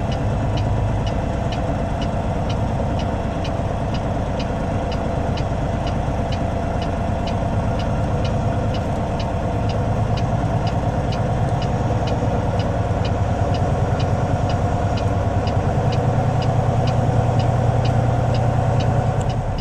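Semi truck's diesel engine idling, heard from inside the cab: a steady low hum with an even light ticking about three times a second.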